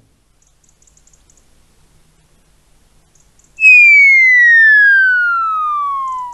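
Cartoon falling-whistle sound effect: after a quiet stretch, one long whistle tone starts about three and a half seconds in and glides steadily down in pitch, stopping abruptly near the end.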